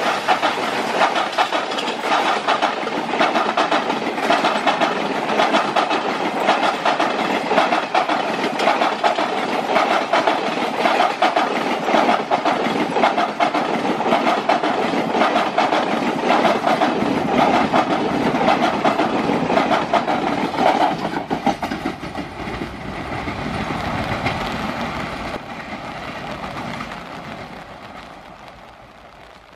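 Express train passenger coaches rushing past at speed, wheels clattering rapidly over the rail joints. Over the last several seconds the clatter fades away as the train draws off.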